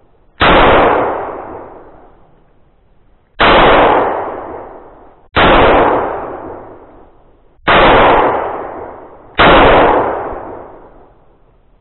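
Five shots from a semi-automatic pistol, fired at uneven intervals two to three seconds apart. Each crack is followed by a long echo dying away.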